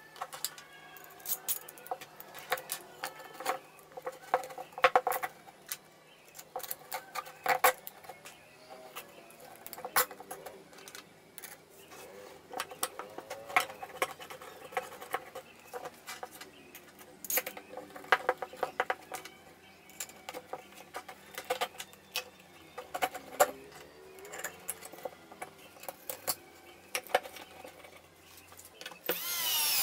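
Clicks and knocks of hands handling and fitting the parts of a homemade plywood clamp: wooden boards, steel threaded rods, springs and washers set down and shifted on a wooden bench, and a wooden knob turned onto a threaded rod. A cordless drill starts with a rising whine right at the end.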